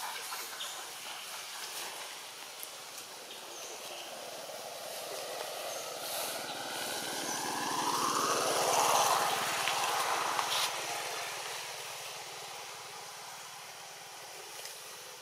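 A motor vehicle passing by: its sound builds to a peak around the middle and then fades away.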